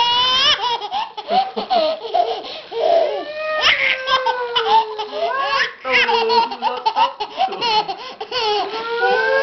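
A baby laughing in repeated bursts.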